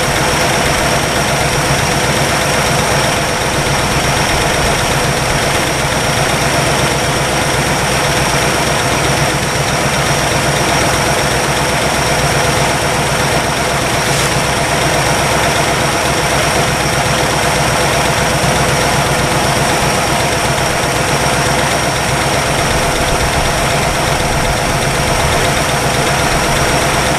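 1962 Chevrolet engine idling steadily as it warms up, with a slight valvetrain tick that the owner takes for valve clearance or valve lifter noise, which is easing as the engine warms.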